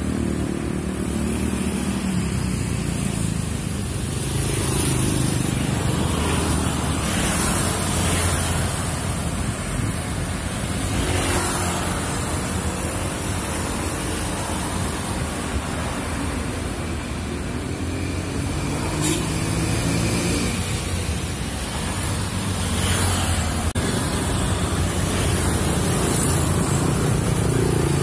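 Street traffic, mostly small motorbikes and scooters with some cars, passing at low speed with engines running steadily. Several vehicles swell louder as they pass close by.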